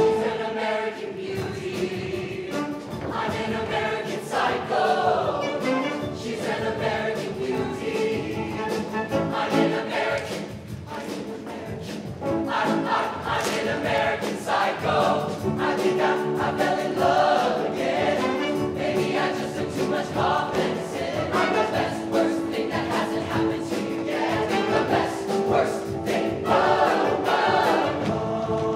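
A mixed (SATB) show choir singing a pop-style number in full harmony over instrumental accompaniment with a steady beat.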